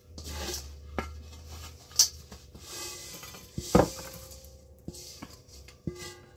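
A stainless steel mixing bowl clinking and knocking against a glass baking dish as a sticky oat granola mixture is tipped and scraped out of it. There is a sharp clink about two seconds in and a heavier knock with a brief ring a little before four seconds.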